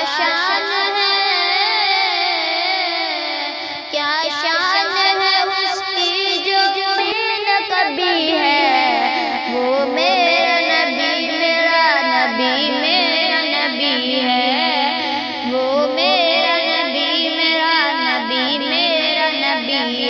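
Naat ringtone: an a cappella Islamic devotional vocal, several voice lines layered over one another in wavering, ornamented runs, with no instruments.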